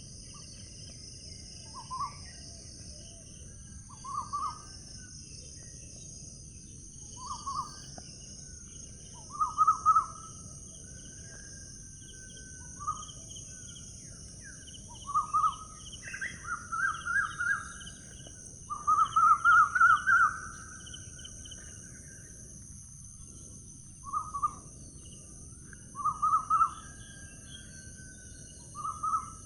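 A bird calling in short, rapid trilled phrases every couple of seconds, with a longer, louder run about two-thirds of the way through. Behind it is a steady high-pitched insect drone and a low outdoor rumble.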